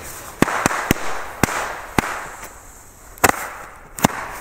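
Knallfrösche (jumping-jack firecrackers) going off on the ground: about eight sharp bangs at irregular intervals, with a sputtering hiss between them as they hop about.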